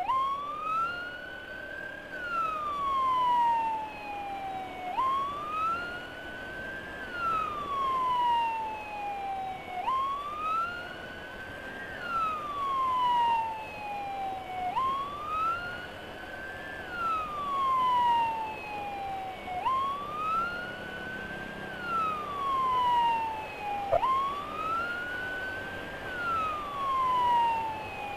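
Electronic emergency siren of an ambulance escort wailing in slow cycles about every five seconds: each cycle jumps up, climbs for about two seconds, then slides down for about three. Road and wind noise runs underneath.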